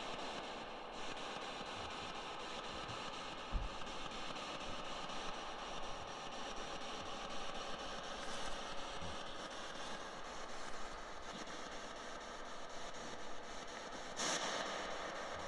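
Steady hiss of static from a ghost-hunting spirit box, the white noise in which the hunters listen for spirit 'chatter'. A brief louder burst of hiss comes about fourteen seconds in.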